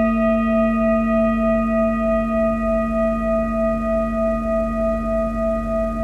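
Metal singing bowl ringing on after a strike: a deep hum with a higher overtone that pulses about three times a second, slowly fading.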